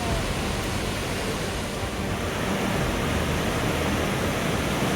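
The Merced River rushing over rapids: a steady, loud noise of white water.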